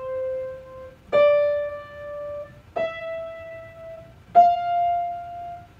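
Piano playing single notes slowly up a scale, one finger at a time: a held note fades out, then three more are struck in turn about a second and a half apart, each a step higher and left to ring.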